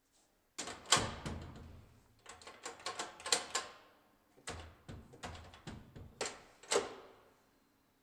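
Corbin Russwin ED5000S exit device being worked by hand: a run of metallic clicks and clunks from the push pad and latch bolt retracting and snapping out, in several clusters, the loudest about a second in and again near the end. The latch still catches the strike although the device is mounted a quarter inch off.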